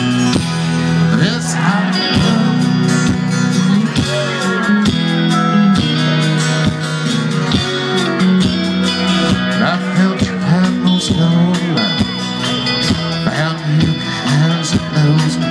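Live country band playing loud through a PA: electric and acoustic guitars, bass guitar and drums.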